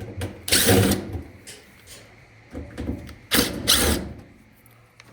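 Cordless drill-driver with a Phillips bit whirring in two short bursts, backing screws out of a dryer's sheet-metal panel.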